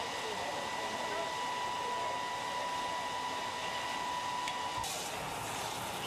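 Steady rushing noise of fire hoses and pumps running, with a steady high whine over it; about five seconds in the whine stops abruptly and the sound changes.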